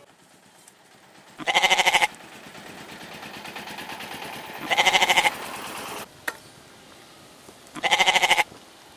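Domestic goats bleating: three short, wavering calls of about half a second each, roughly three seconds apart.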